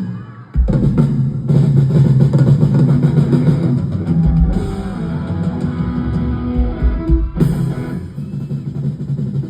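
Rock band playing live: electric guitars, bass and drum kit at loud volume, dropping out briefly just after the start and again for a moment near the end.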